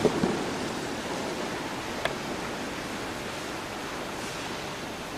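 Steady hiss of room noise, with a couple of brief soft thumps at the very start and one sharp click about two seconds in.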